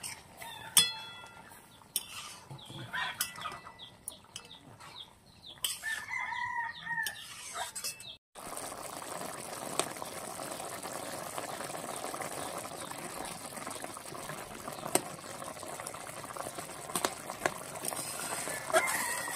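A long steel spatula clinks and scrapes against a metal wok of fish curry, with a chicken calling about six seconds in. After that the thick curry simmers with a steady bubbling, broken by small pops.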